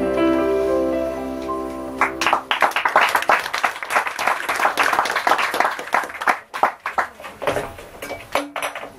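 The song's last held chord ends about two seconds in, and an audience breaks into applause, clapping steadily and then thinning out near the end.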